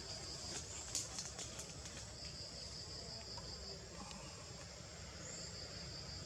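Insects trilling: a high, rapidly pulsing trill that comes in three bouts of one to two seconds, over a steady high insect drone. A few soft clicks come about a second in.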